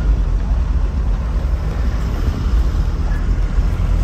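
Tata 407 light truck driving on the highway, heard from inside the cab: a steady low engine and road rumble.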